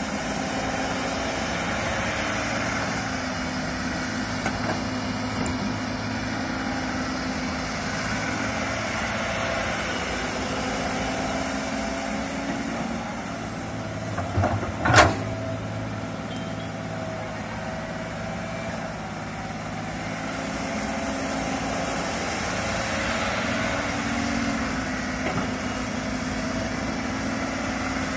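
Komatsu crawler excavator's diesel engine running steadily while the machine digs and swings. The engine note swells a little at times, and one sharp knock comes about halfway through.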